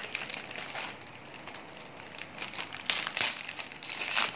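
Clear plastic packaging bag crinkling as it is handled, with a couple of louder crackles near the end.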